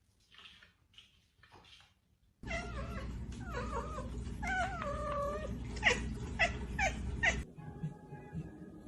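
A cat meowing: two long, wavering, drawn-out calls, then four short, sharp ones, over a steady background hum. The sound cuts off suddenly near the end.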